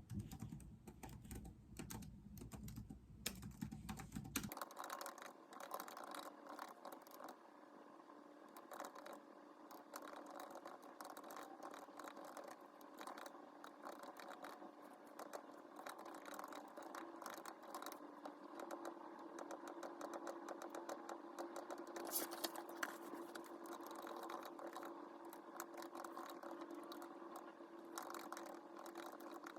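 Faint typing on a keyboard: a continuous run of quick key clicks over a low steady hum.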